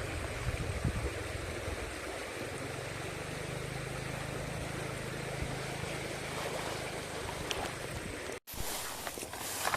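Steady rushing of a small stream, with low wind rumble on the microphone. The sound cuts out abruptly for an instant near the end, then resumes with a few light ticks.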